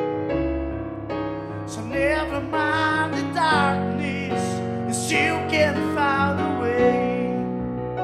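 Background music: a soft pop ballad with electric piano chords, and a sliding, wavering lead melody from about two seconds in until near the end.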